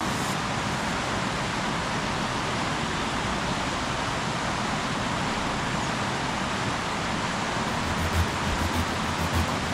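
Steady rush of a shallow river pouring over a stony step into rapids. A few low thumps come in near the end.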